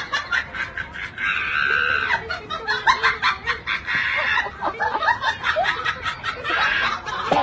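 Laughter: snickering and chuckling in short, choppy bursts, loudest about a second in and again around the middle.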